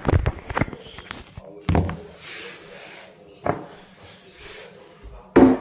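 A series of separate knocks and thuds from objects being handled and set down. There is a quick cluster at the start, single bumps about two and three and a half seconds in, and the loudest knock near the end.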